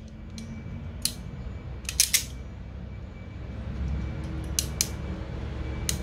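Hand crimping tool closing on a small connector pin: a few sharp metallic clicks, with a close pair about two seconds in and another pair near the end.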